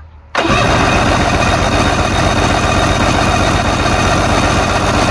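Inline-six outboard motor being cranked over, with its spark plugs grounded so it does not fire. It makes a steady, rhythmic chugging that starts suddenly about half a second in. This is a compression test on the number one cylinder, with a gauge in the plug hole.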